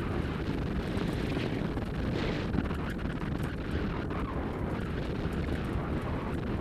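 Steady rushing noise of wind buffeting the microphone and the dog-drawn rig rolling fast over a leaf-strewn dirt trail, with a deep rumble underneath.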